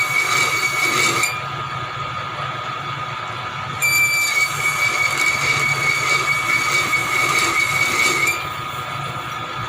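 Machine tool cutting metal, with a high, steady squeal over a constant low running hum. The squeal cuts out about a second in, comes back about four seconds in and stops again near the end, as the cut is engaged and released.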